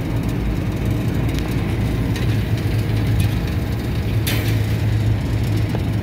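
Steady low mechanical hum of rooftop refrigeration machinery running, with a single short click about four seconds in.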